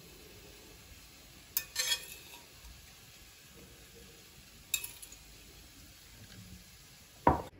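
Metal kitchen tongs clicking and tapping as slices of fried döner meat are picked up and laid on a ceramic serving plate. A few sharp clicks come about one and a half, two, and five seconds in, and a duller knock comes near the end.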